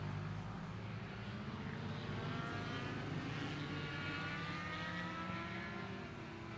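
Distant motorcycles running on a race circuit: a steady low engine drone, with a higher engine note from about two seconds in that slowly changes in pitch as a bike goes round the track.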